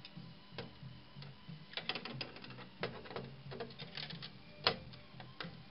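Irregular small clicks and taps of metal pliers gripping and working a transistor on a circuit board, with one sharper click near the end.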